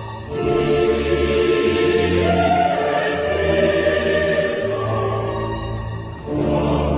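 Dramatic choral music: a choir singing sustained chords over orchestra, with the chords changing every second or two.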